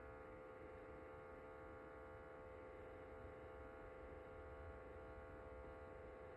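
Ailinke humidifier running with a faint, steady hum made of several tones at once, the unwanted noise that the unit is making.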